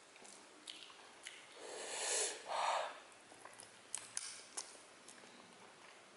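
Eating and nose sounds while eating chicken feet by hand: a breath drawn through the nose about one and a half seconds in, then a short snort, followed by a few sharp wet clicks of lips and teeth on the bone.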